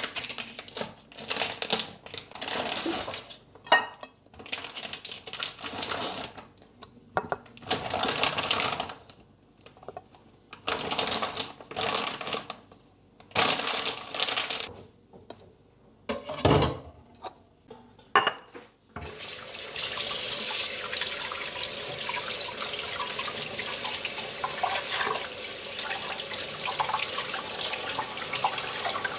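Plastic vacuum pack crinkling and rustling in short bursts as it is cut open and emptied, with one thump about 16 seconds in. About 19 seconds in a kitchen tap is turned on and water runs steadily into a stainless steel sink over raw beef tongues being rinsed by hand.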